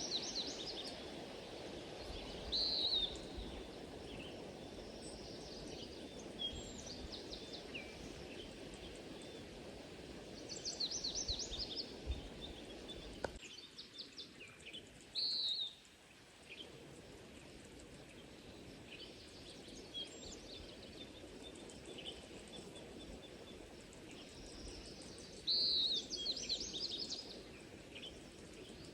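Small birds singing and calling, with repeated short trills and chirps, over a steady low rush of background noise. The background drops out for a few seconds after a click about halfway through, then returns.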